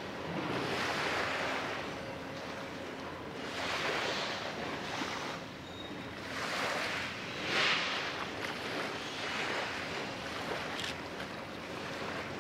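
Small waves washing against the shore in soft surges every two to three seconds, the strongest about two-thirds of the way through.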